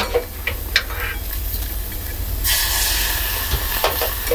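Shrimp and celery sizzling in a small aluminium pan as they are cooked in a little sake, with a few clicks of chopsticks against the pan in the first second. About two and a half seconds in, the hiss of steam gets louder and stays that way.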